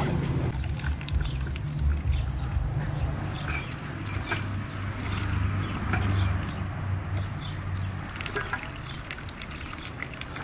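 Muscovy ducks dabbling in wet mud: scattered small wet clicks and drips of bills working the puddled ground, over a low steady hum that fades out about two-thirds of the way in.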